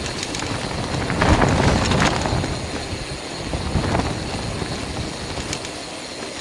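Storm wind buffeting the microphone of a camera carried on a mountain bike ride, a steady low rumble that swells in gusts about a second in and again near four seconds.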